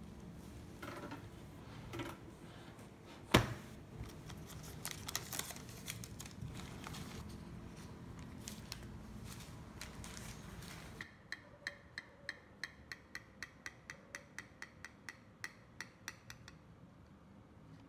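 Knocks and rustling of a freshly baked cheesecake in its parchment collar being handled with oven mitts on a wire cooling rack, with one sharp knock a few seconds in. Then a serrated knife sawing through the sponge cake, an even run of short clicking strokes about four a second that stops suddenly.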